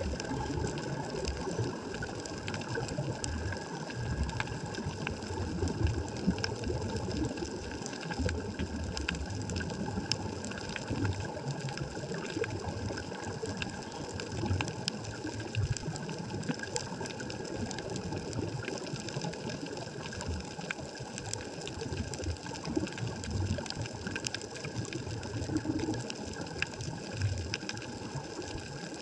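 Underwater ambience picked up by a stationary GoPro in its waterproof housing: an uneven low rumble of water movement, scattered with many faint clicks and crackles, over a faint steady hum.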